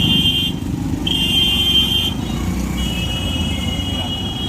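Road traffic heard while riding: a steady low rumble of engines and road noise, with a high steady tone that sounds three times, the last stretch longer.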